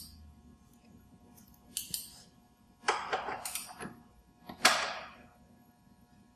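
Metal tools clinking and rattling as they are handled, in three short bursts, the loudest nearly five seconds in.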